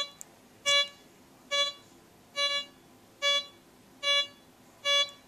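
Bliss Tool LTC64 metal detector beeping seven times at an even pace, a short pitched tone a little under once a second. It is the detector's signal on a belt buckle raised 15.5 inches off the ground.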